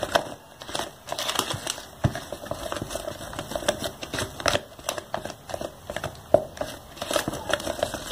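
Wooden spoon stirring a thick cream and condensed-milk mixture in a plastic tub, scraping and knocking against the sides in quick, irregular strokes.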